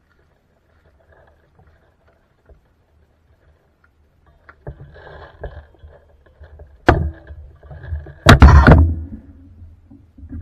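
Almost nothing heard for the first few seconds, then rustling and handling noise of an airsoft player's gear and rifle, with one sharp knock about seven seconds in and a louder, brief cluster of knocks and rattles about a second later.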